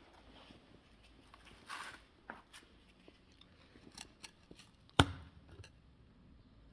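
Scattered light clicks and knocks of metal parts and hand tools being handled during gearbox work, with a short scrape near the start and one sharp knock about five seconds in.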